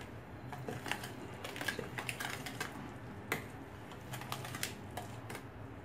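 Wire hand whisk stirring a thick flour, sugar and milk batter in a plastic bowl: quiet, irregular tapping and scraping of the wires against the bowl.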